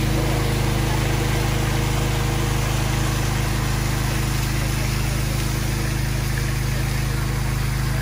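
Cascade shower: hot spring water gushing from overhead pipes and splashing onto people lying on benches and onto a wooden deck. A steady low mechanical hum runs underneath.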